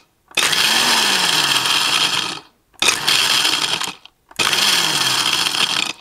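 Magimix blender crushing ice cubes on its Pulse setting: three separate bursts of the motor and rattling ice, about two seconds, one second and a second and a half long, with short pauses between them. The ice is being pulsed into crushed ice.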